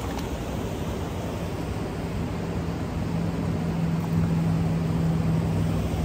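Steady rush of river water, with a low steady hum coming in about two seconds in and growing louder toward the end.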